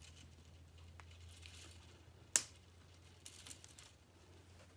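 K'nex plastic pieces handled and fitted onto the toy Ferris wheel: soft rustling and light plastic clicks, with one sharp snap about two and a half seconds in, over a faint low hum.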